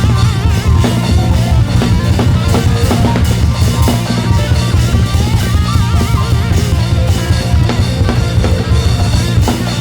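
Live rock band playing: a drum kit beating fast with heavy bass drum under guitar and bass.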